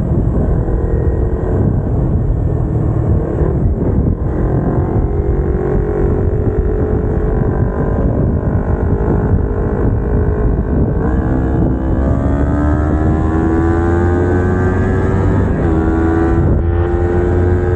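Kawasaki Ninja 250R parallel-twin engine with aftermarket headers and exhaust, heard from the rider's seat under acceleration. Its note climbs as it revs and drops abruptly at gear changes, one about twelve seconds in, over steady low wind rumble.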